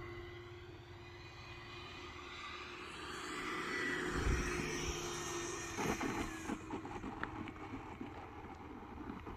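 Electric radio-control model aircraft running in flight with a steady motor hum, joined by a rising hiss that grows loud in the middle and cuts off suddenly about six and a half seconds in. Wind gusts rumble on the microphone.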